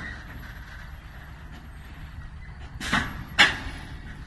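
A heavy dump truck with a full trailer pulling away, its diesel engine a steady low rumble. About three seconds in come two short, loud hisses of air from its air brakes.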